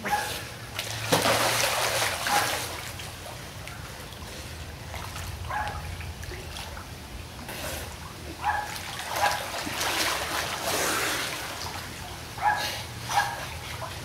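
Pool water splashing and sloshing as two people wrestle in it, in surges that are loudest about a second in and again near the middle. Several short high-pitched calls come in between.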